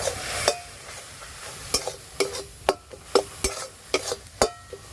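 A spatula stirring greens in a kadai, scraping and knocking against the pan at irregular intervals with some strokes ringing briefly, over a faint sizzle; turmeric and salt are being stirred into the wilted greens.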